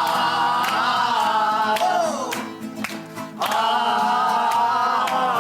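Singing of an Italian song, long held sung notes. The singing falls away about two seconds in and comes back strongly about a second later.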